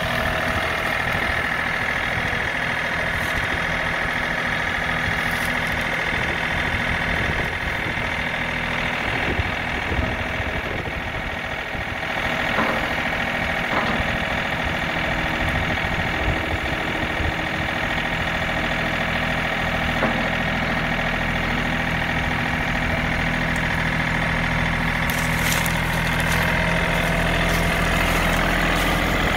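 John Deere 3038E compact tractor's three-cylinder diesel engine running steadily, with a steady high whine over it, while the 305 front loader is raised and lowered. A few small clicks come in the middle.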